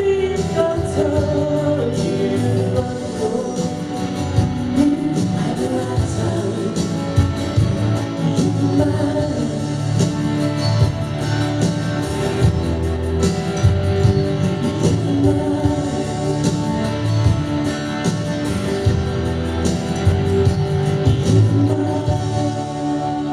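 Live band music from an electric guitar and an acoustic guitar, with a man singing held notes over them.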